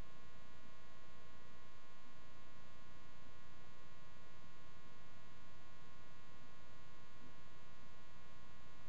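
Steady electrical mains hum with a buzz of many evenly spaced overtones, unchanging throughout.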